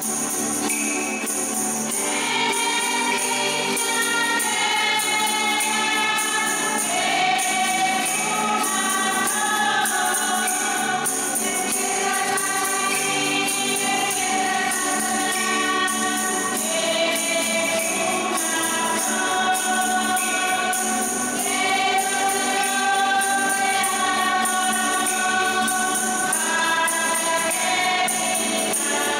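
A choir singing a slow religious song with long held notes and instrumental accompaniment.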